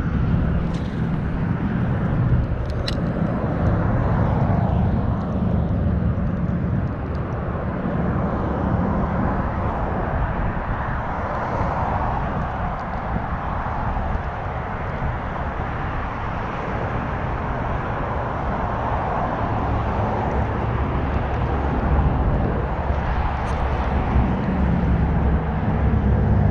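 Wind buffeting the action camera's microphone: a steady low rumble that swells and eases with the gusts, with a light click about three seconds in.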